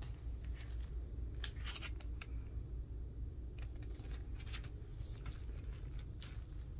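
Plastic comic-book sleeve rustling and crinkling as the bagged comic is handled and slid down onto a stack of other bagged comics, in several short bursts over a steady low hum.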